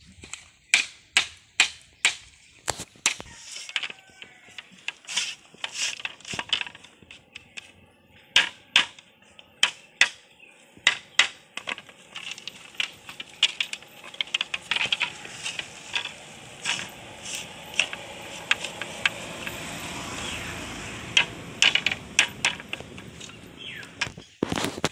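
A hand tool knocking on bamboo as split-bamboo slats are fixed across bamboo poles for a fence panel. The knocks are sharp and come in runs of about two to three a second, with short pauses between runs.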